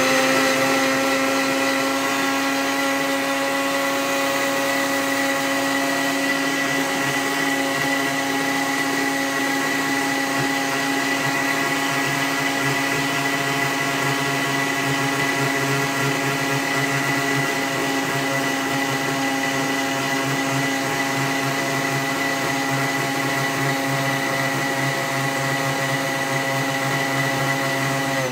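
Countertop blender running steadily at one high speed with an even motor whine, puréeing a liquid marinade of parsley, lemon juice and oil.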